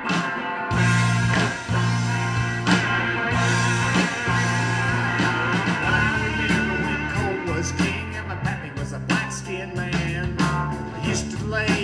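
Live folk-rock band playing an instrumental passage: electric guitars over bass guitar and drums. The bass and the rest of the band come in under the guitar less than a second in.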